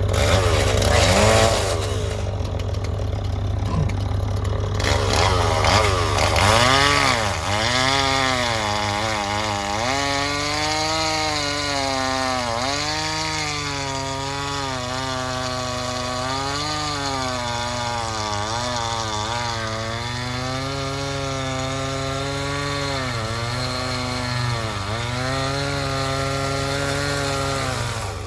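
Stihl two-stroke chainsaw cutting through a pine log. Its engine pitch dips repeatedly as the chain bites into the wood and climbs again as it frees up.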